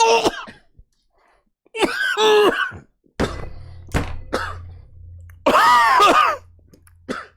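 A man gagging and coughing: two drawn-out retching heaves with short coughs between them, as he struggles to swallow a chewed, hairy tarantula.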